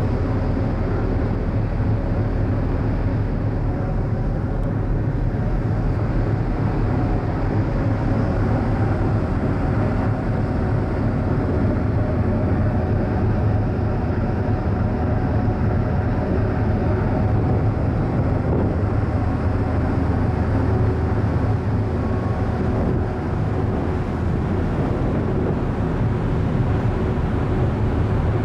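Steady low machinery drone from a large car ferry's funnel casing, the ship's engine exhaust and ventilation running together, with several held tones over a deep rumble.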